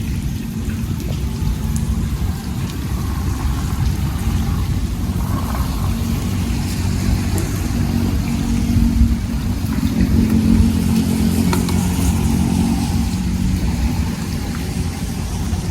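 An engine running steadily with a low hum, growing a little louder about two-thirds of the way through, over a rush of wind-like noise.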